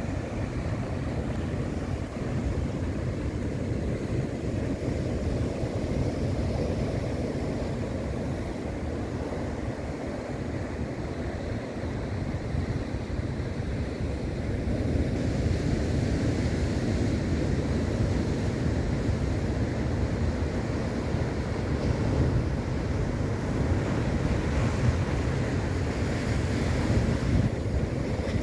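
Ocean surf breaking and washing over a boulder breakwater, a steady rushing wash that swells a little louder about halfway through, with wind rumbling on the microphone.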